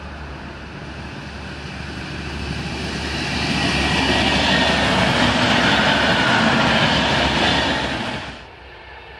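Red diesel multiple unit passing close by, its engine and wheels on the rails growing steadily louder to a peak. The sound cuts off abruptly about eight seconds in.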